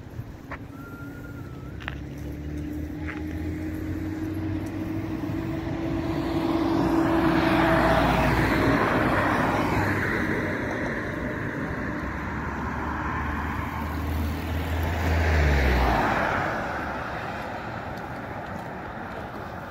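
Road traffic: cars passing close by one after another, with tyre and engine noise building to a peak about eight seconds in and again about three-quarters of the way through. A low engine hum drops in pitch as the second vehicle goes by, then fades.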